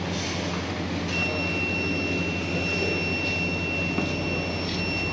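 Refrigerated benchtop microcentrifuge running with a steady machine hum. About a second in, a steady high-pitched tone joins it, with a brief break near the end.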